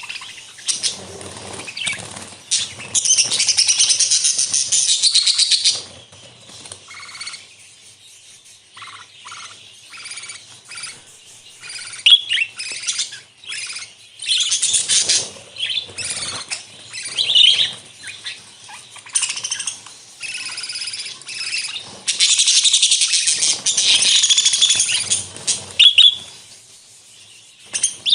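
A flock of budgerigars chirping and warbling, with dense stretches of chatter broken by short lulls and single chirps.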